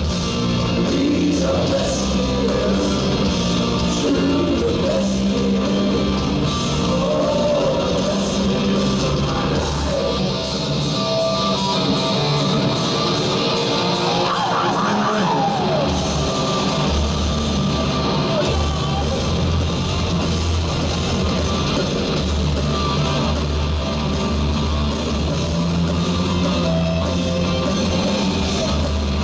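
Hard rock band playing loud in an arena: electric guitars, bass guitar and drums, with a male lead singer singing and yelling. About halfway through, the bass and drums thin out for a few seconds, leaving guitar over a fast high ticking, then the full band comes back in.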